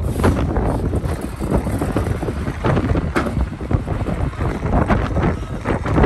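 Dump truck's diesel engine running as the truck lowers its tipper bed and pulls away across the dirt, under heavy wind buffeting on the microphone.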